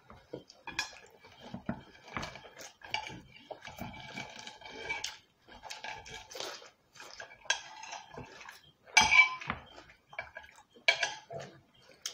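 Metal fork and knife scraping and clinking against ceramic plates in irregular strokes, with two sharper, louder clinks near the end.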